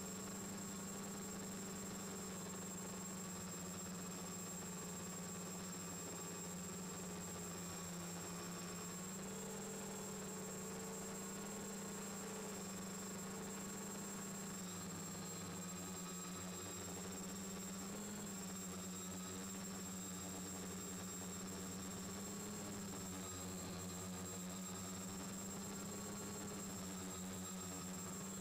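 Muffled hum of a quadcopter's four Turnigy D2830 1000KV brushless motors and propellers in flight, heard from the onboard camera. The pitch shifts a little now and then as throttle changes, with a thin steady high whine over it.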